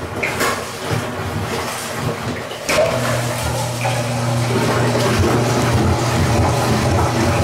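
Washing machine drain pump starting with a click about three seconds in, then humming steadily as it pumps water out through the newly fitted drain hose, with rushing water behind the hum.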